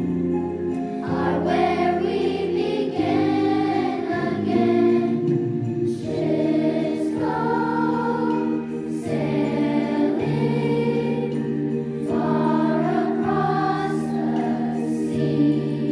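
Children's choir singing a slow song together in phrases of a few seconds, over an instrumental accompaniment of sustained low notes.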